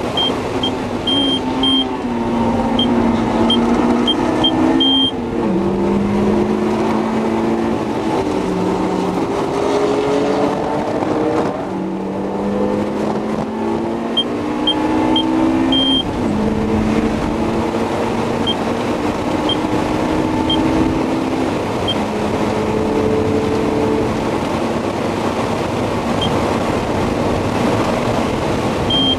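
Honda S2000's inline-four engine heard from inside the cabin while lapping a race track, its pitch climbing under acceleration and dropping suddenly at each gear change, with road and wind noise underneath. Short high-pitched beeps come and go in clusters.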